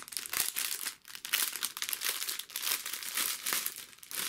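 Clear plastic packaging crinkling in the hands as a wrapped bundle of diamond-painting drill bags is handled, in uneven spurts with a short pause about a second in.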